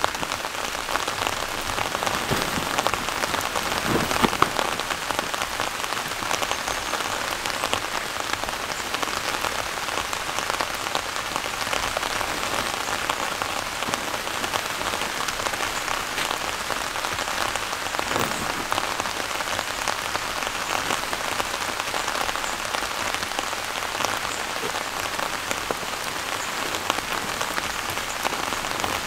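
Steady rain falling, a continuous even hiss of drops, with a few brief dull knocks about four seconds in.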